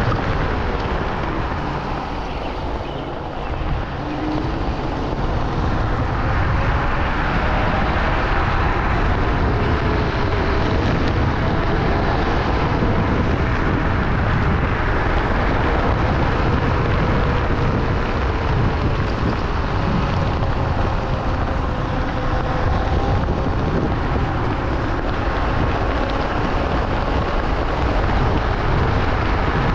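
Wind rushing over the microphone while riding a Wolf King GT Pro dual-motor electric scooter, with a faint motor whine drifting up and down in pitch underneath.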